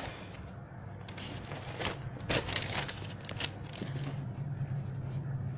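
Paper rustling and crackling as a page of a spiral-bound notebook is turned over, with several sharp crackles near the middle, over a low steady hum.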